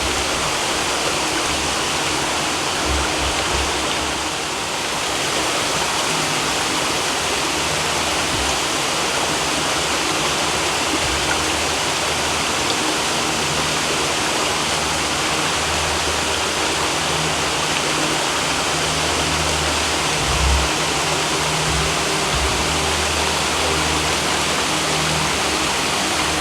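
Waterfall crashing steadily into its pool, heard up close as a loud, even rush of water.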